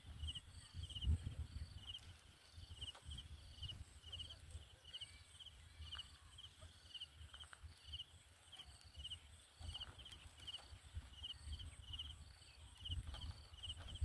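Faint outdoor ambience: a high, regular chirping that repeats about twice a second, over soft, irregular low thumps.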